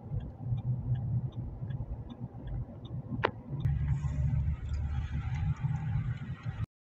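Car interior while driving: steady low road and engine rumble with a light, evenly spaced ticking. A single sharp click sounds about three seconds in, and the sound cuts off suddenly near the end.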